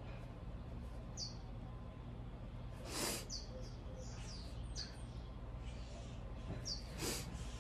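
A woman crying quietly, sniffling twice through a tissue, about three seconds in and again near the end, while birds chirp in short, falling notes over a low steady hum.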